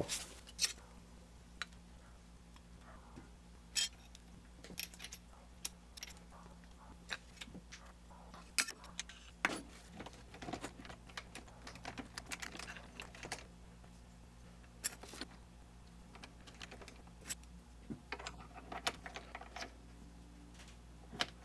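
Scattered metallic clicks and clinks of hands working at a mini metal lathe's compound slide and quick-change tool post, setting the compound to an angle for taper turning, over a faint steady low hum.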